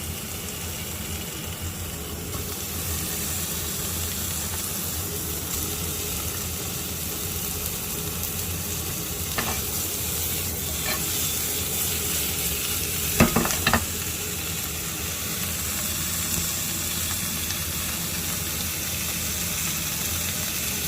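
Pork belly slices sizzling steadily as they fry in a hot frying pan. A few light knocks cut in, the loudest pair about two-thirds of the way through.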